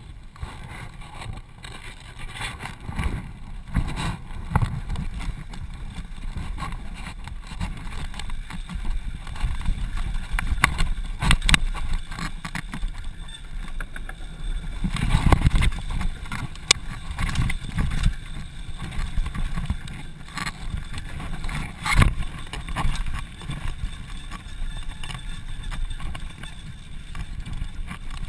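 Mountain bike ridden downhill on a dirt trail: a continuous rumble of tyres and wind on the mount, with frequent sharp clicks and knocks of chain and frame over bumps. About halfway through it grows louder for a couple of seconds as the bike rattles across a wooden boardwalk.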